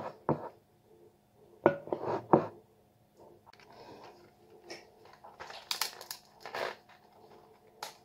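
Scattered kitchen handling noises: a few knocks from a spoon stirring a sticky marshmallow and popcorn mix in a glass bowl, then crackling and rustling from a plastic and card packet of edible eyes being handled, loudest about six seconds in.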